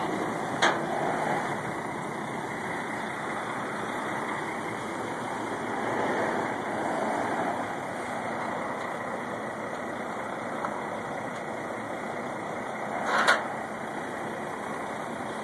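A car-carrier truck's diesel engine idling steadily. There is a short click shortly after the start and a sharp knock about two seconds before the end.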